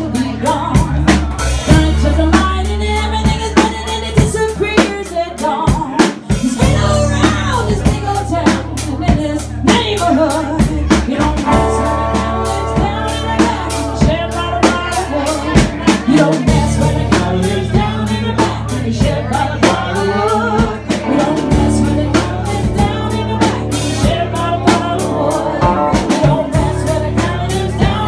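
Live country-rock band playing a song: a drum kit keeping a steady beat under a bass line and strummed acoustic guitar, with a woman singing.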